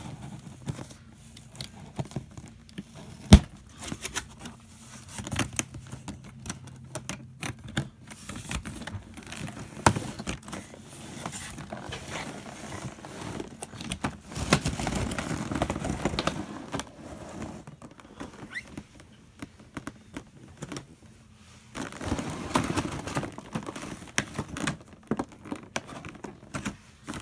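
Cardboard box and plastic blister-tray packaging being handled: crinkling, scraping and scattered sharp clicks and taps. There are longer stretches of rustling about halfway through and again near the end.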